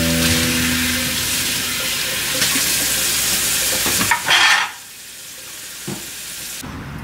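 Kitchen faucet running into a stainless steel sink as glass mason jars are rinsed: a steady hiss of water. About four seconds in there is a brief louder splash, and then the water sounds quieter.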